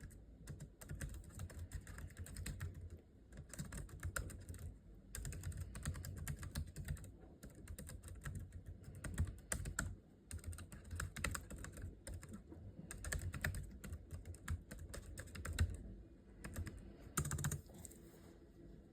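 Typing on a Logitech K380 low-profile, non-mechanical keyboard: rapid runs of soft key clicks broken by short pauses, with a louder flurry of keystrokes near the end.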